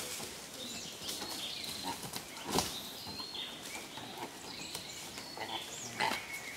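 Proboscis monkeys jumping about on a wooden feeding platform: scattered knocks and thumps on the boards, the loudest about two and a half seconds in and another near the end. Outdoor hiss and faint high chirps run underneath.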